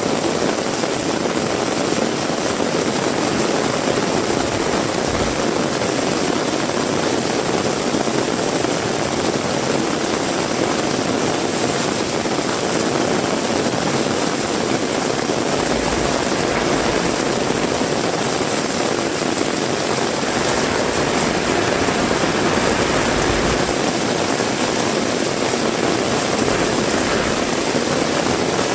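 Heavy rain pouring steadily, an even rush of noise, with a few brief low rumbles of wind.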